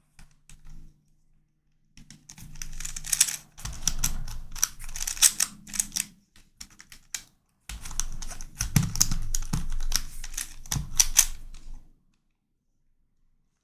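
Plastic pieces of a YuXin Corner Helicopter 2x2 puzzle clicking and clacking in quick runs as it is twisted by hand, with a short pause in the middle and going quiet near the end.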